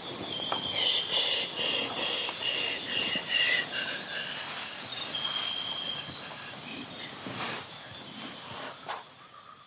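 Steady, high chirring of insects with a few short chirps at a lower pitch over it. It fades out near the end.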